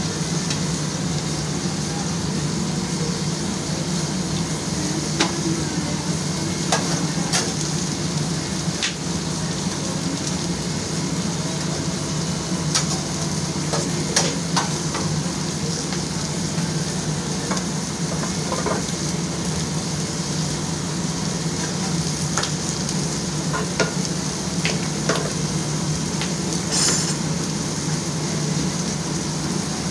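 Food sizzling as it fries, a steady hiss over a constant low hum, with scattered sharp clicks and taps.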